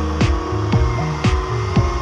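Music with a steady electronic beat: falling-pitch kick drums and sharp snare-like hits about twice a second over held synth tones.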